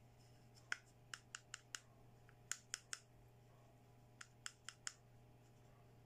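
Sharp clicks of hard plastic as fingers and nails handle a small toy perfume bottle, in three quick runs of three to five clicks.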